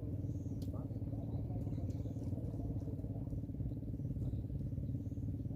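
An engine running steadily at a low, even drone, with a few faint small clicks over it.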